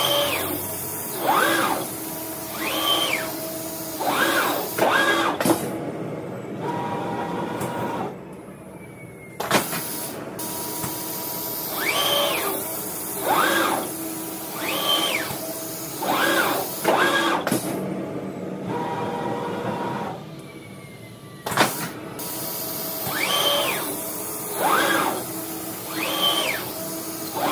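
Digital knife cutting machine's gantry drive motors whining in rising-then-falling sweeps as the cutting head speeds up and slows down, about one sweep every second or so, over a steady machine hum. Twice the sweeps stop and it goes quieter for a few seconds.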